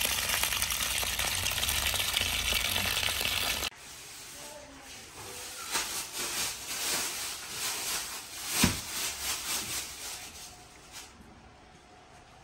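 A steady stream of water splashing onto a bucket of shredded raw potato as it is rinsed, cut off abruptly about four seconds in. Then soft taps and knocks of dough being handled on a floured table, with one sharper thump a little past the middle.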